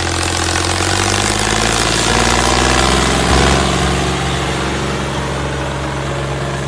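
A motor running steadily and loudly: a low, even hum with a higher whine whose pitch slowly wavers.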